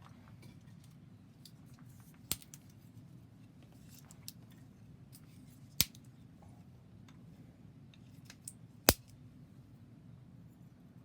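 Wood burning in a wood stove, crackling with small ticks and three sharp pops a few seconds apart, over a low steady hum.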